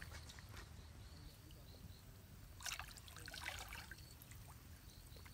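Faint sloshing and trickling of water as a person wades waist-deep in a muddy canal and works along the bank with their hands, with a short run of small splashes about halfway through.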